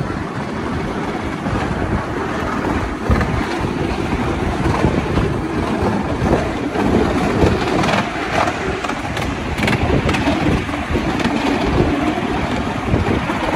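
Miniature steam-hauled ride-on railway train running along its track, a steady rumbling noise with a few sharp knocks, and wind on the microphone.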